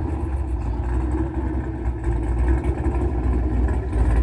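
Muscle car engine idling through its exhaust, recorded right at the tailpipes: a deep, steady rumble that holds even with no revving.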